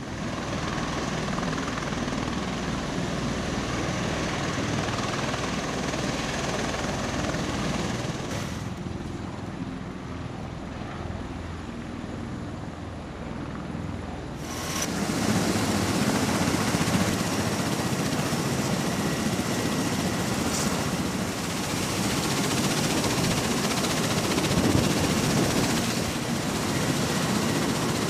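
Bell Boeing V-22 Osprey tiltrotors, powered by Rolls-Royce AE 1107C turboshafts, flying low overhead: a steady deep drone of rotors and engines that swells and eases. About halfway through it jumps to a louder, fuller drone.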